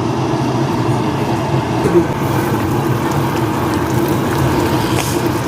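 A steady mechanical drone with a low hum and a rushing noise over it, unchanging throughout.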